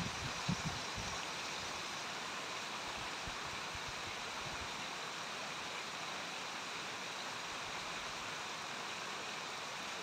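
A small, shallow moorland brook babbling steadily over stones. A few low rumbles on the microphone die away in the first second.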